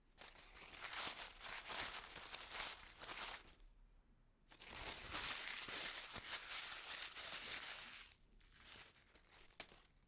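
Paper being crunched and crumpled in three bouts of dense crackling: two long ones of about three seconds each and a shorter one near the end, which ends on a sharp crackle.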